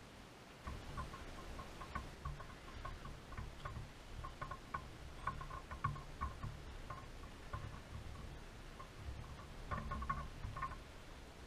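Handling noise of a camera picked up and carried on foot: irregular low thumps and light clicking that start about a second in.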